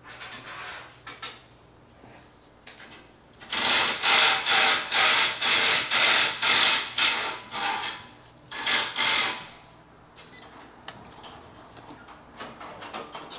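A power tool run in a rapid series of short bursts, about two a second for some four seconds, then two more bursts a moment later, with light ticking and clicks after.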